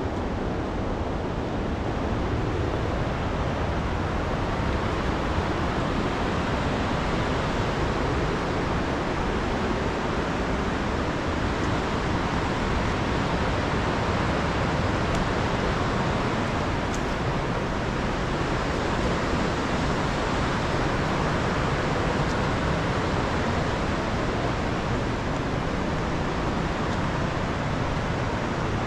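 Steady rushing of a fast mountain river's rapids: an even roar of water with no breaks.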